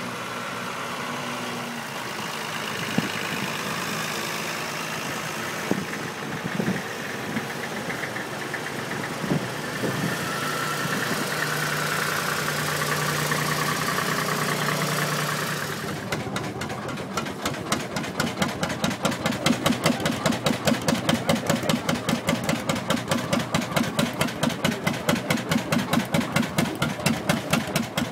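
Lanz Bulldog single-cylinder hot-bulb two-stroke engine running at a slow idle, its exhaust giving an even, loud thump about twice a second from around halfway through. Before that, a mixed engine hum with a few sharp knocks.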